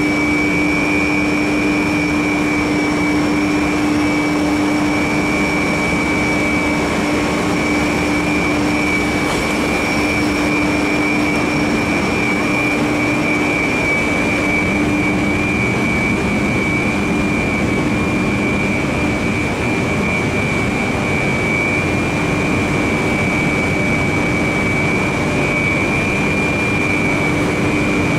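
Pellet plant machinery running steadily: a loud constant drone with a steady high whine and a lower hum, the hum weakening midway and coming back near the end.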